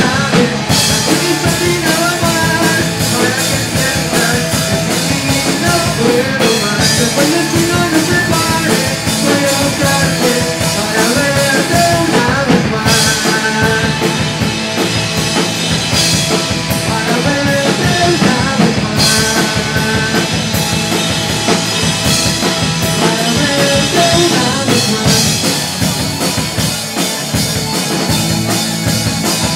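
Live rock band playing, electric guitar over a drum kit, loud and continuous.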